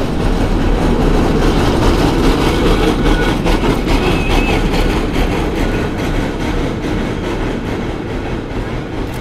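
San Francisco cable car on the Powell & Hyde line rolling past close by: a steady rumble and clatter of its wheels on the rails, with a few clacks about three to four seconds in. It is loudest early and slowly fades as the car moves off.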